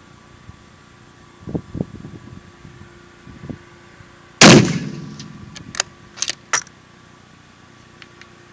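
A single shot from a 7mm-08 bolt-action rifle (Savage Model 11) about four and a half seconds in, with a ringing tail that dies away over about a second. Then a quick run of sharp metallic clicks as the bolt is worked.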